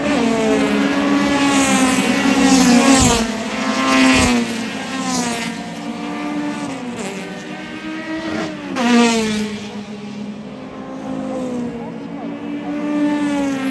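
Several Honda Civic race cars with four-cylinder VTEC engines accelerating past one after another, their high-revving engine notes sweeping up and down as they shift and pass, loudest about two seconds in and again around nine seconds.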